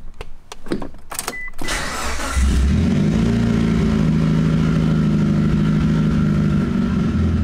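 Mitsubishi Lancer Evolution IX's turbocharged 4G63 four-cylinder being started from inside the cabin: a few clicks, a brief crank about two seconds in, then the engine catches and runs at a steady idle.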